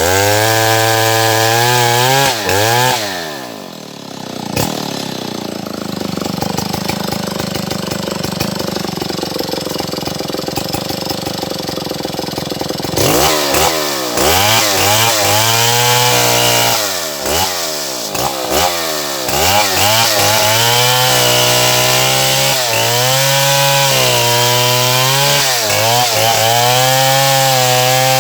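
Stihl MS070 two-stroke chainsaw. It runs at high revs, drops to a quieter, lower-pitched run for several seconds, then is revved up and down repeatedly before holding steady at high revs, cutting wood while felling a tree.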